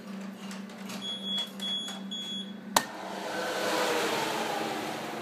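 Fri-Jado convection baking oven beeping three times to signal that preheat is ready, over a steady hum. A sharp click of the door latch follows, then the loud rush of the hot-air fan as the door opens, the fan's whir slowly falling in pitch as it winds down.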